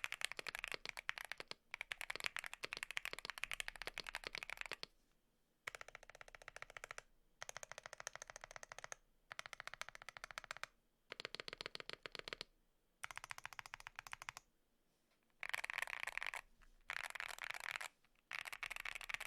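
Typing on a Bakeneko60 keyboard fitted with Rococo tactile switches (polycarbonate top and bottom housings). It comes as quick runs of key clacks, eight or so bursts with short pauses between them.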